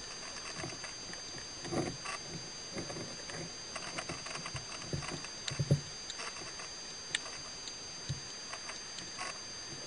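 Underwater ambience: scattered clicks and crackles with occasional low knocks, the loudest about five and a half seconds in, over a steady hiss and two steady high whines.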